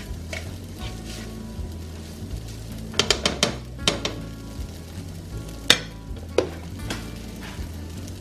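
Instant ramen noodles sizzling in a frying pan as they are stirred and tossed, with a cluster of clinks and scrapes of the utensil against the pan about three seconds in and a few single knocks later, the loudest just before six seconds.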